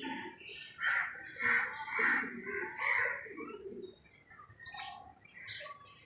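Birds calling: four loud, harsh calls in quick succession from about one to three seconds in, then quieter scattered calls.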